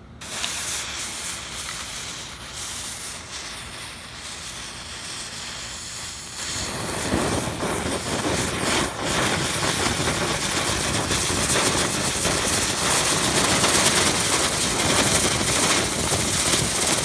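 Poker chip spinner firework lit on concrete: a steady, dense hiss that grows louder and rougher about six seconds in, as it throws sparks and spins.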